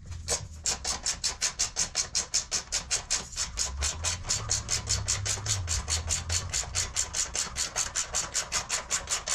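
Socket ratchet clicking in a quick, even rhythm, about five or six clicks a second, as it is worked to loosen the bolts on a rear fender bar.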